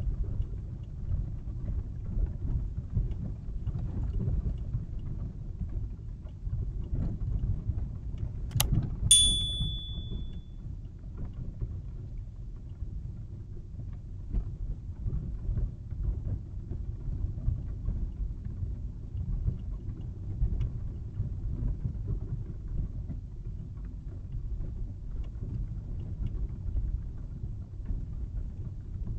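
Low, steady rumble of a car driving, picked up by a dashcam's microphone. About nine seconds in there is a sharp click followed by a short high-pitched beep.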